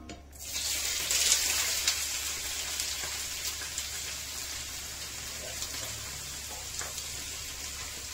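Food frying in hot oil in a pan: a sizzle starts about half a second in, is loudest for the first couple of seconds, then settles into a steady sizzle with a few small crackles.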